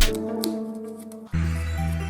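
Background music: held notes fade out, then about a second and a quarter in a new passage starts with a steady low bass under sustained tones.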